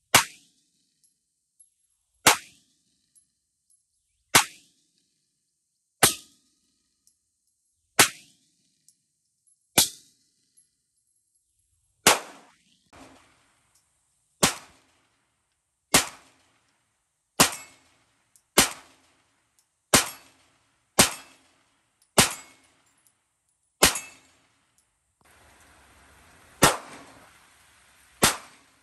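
Smith & Wesson M&P9 Shield Plus Performance Center, a ported 9mm micro pistol, firing about seventeen single shots: roughly one every two seconds at first, then quicker, about one every second or so, in the second half.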